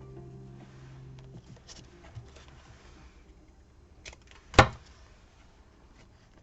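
Background music ends early on, leaving faint rustling and handling of collage materials with a few small clicks, and one sharp knock about four and a half seconds in.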